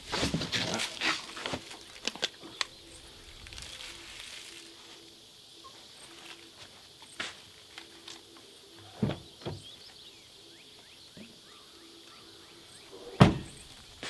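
Knocks and plastic rustling as a bagged window air conditioner is handled and settled on a pickup's tailgate, then scattered footsteps and clicks, two thumps about nine seconds in, and one loud thump shortly before the end.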